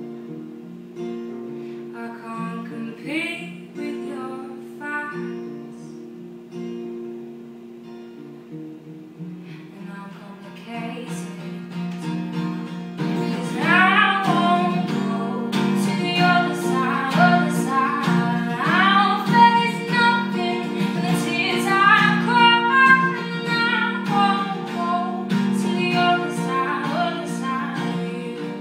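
A woman singing a song to her own acoustic guitar. It is softer for the first half, then from about halfway the strumming grows louder and the singing fuller.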